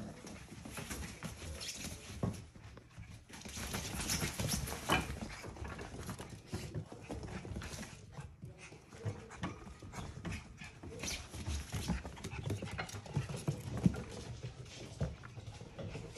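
Young Portidoodle puppies (Portuguese Water Dog × Poodle) romping in play, their paws pattering and scrabbling on the floor mat and blanket, with many small light knocks and scuffs.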